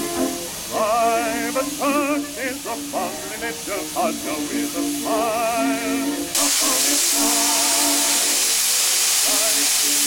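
Music with a wavering tune, then about six seconds in a narrow-gauge steam locomotive starts letting off steam with a loud steady hiss that drowns the music.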